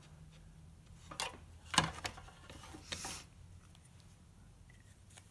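Tin snips cutting thin embossed sheet metal: a few short, sharp snips and metal rattles spread over the first three seconds, the loudest near two seconds in.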